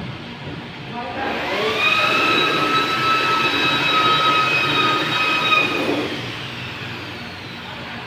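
Corded electric power tool spinning up about a second in, running at a steady high whine, then winding down about six seconds in.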